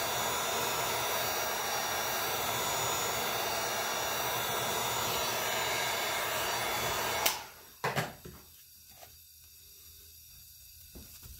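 Handheld electric heat gun blowing steadily while softening a kydex sheet for folding, then switched off with a click about seven seconds in, followed by a couple of short knocks as the piece is handled.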